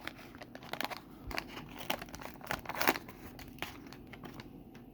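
Wax paper wrapper of a 1982 O-Pee-Chee baseball card pack being torn open and crinkled by hand: a run of irregular crackles that thins out after about three and a half seconds.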